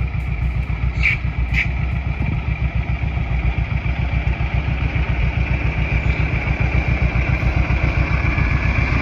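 Semi truck's diesel engine idling with a steady, finely pulsing low throb. Two short high chirps come about a second in.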